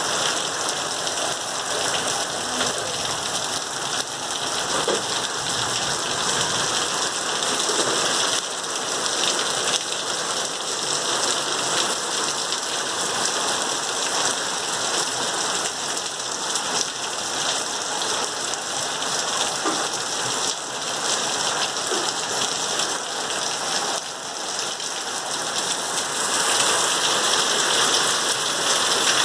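Heavy rain falling steadily, a dense even hiss of drops on surfaces, growing a little louder near the end.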